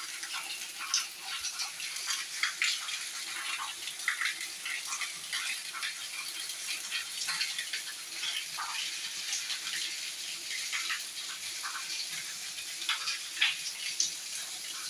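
Water running and splashing, with a constant haze and irregular spattering crackles.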